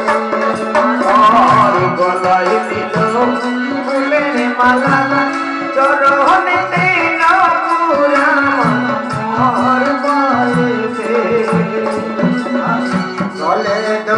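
Live devotional folk song: a voice singing a wavering melody over a steady held note, with hand-drum beats keeping a regular rhythm.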